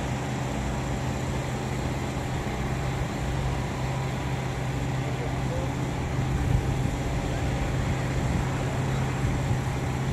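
Steady low hum of a vehicle engine idling, even in level with no revving.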